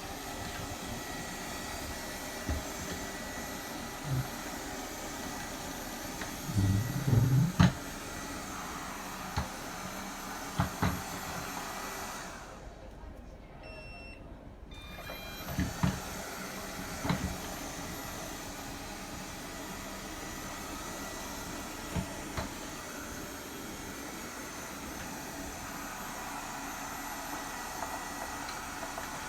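Robot vacuum cleaner running with a steady whir, with scattered knocks and a louder cluster of bumps about a quarter of the way in. Its sound drops and thins for a few seconds about halfway through.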